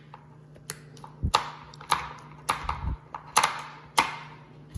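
A bluegill's spiny dorsal fin being cut off: a series of about seven sharp clicks, each with a short fading ring, over a steady low hum.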